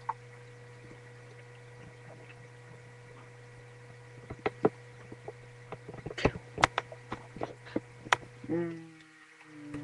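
Steady electrical hum, with scattered faint clicks and knocks starting about four seconds in and a short pitched sound near the end.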